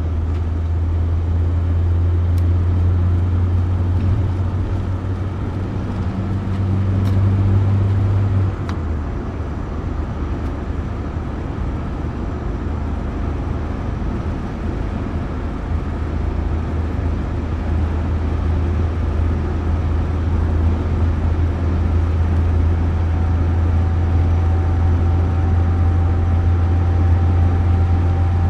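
Volvo PV 544's four-cylinder engine and road noise heard inside the cabin while cruising at motorway speed: a steady low drone that weakens about eight seconds in and turns strong and steady again a little past halfway.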